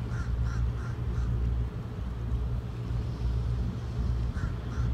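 A bird giving short calls, three in quick succession near the start and two more near the end, over a steady low rumble.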